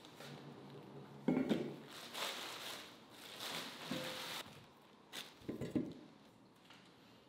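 Plastic shopping bag rustling as things are taken out of it, with a few knocks as a colander is handled and set down on a wooden tabletop, the sharpest about a second in.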